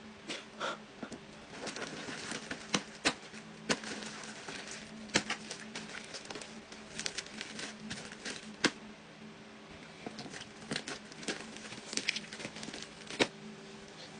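Slime being squished and played with by hand, giving irregular sticky clicks and pops, several a second at times, over a faint steady hum.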